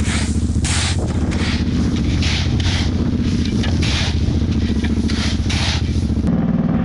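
Power buggy engine running steadily while crushed stone is shovelled into it: about ten short gritty scrapes of shovel and stone. The scraping stops about six seconds in, and the engine note changes.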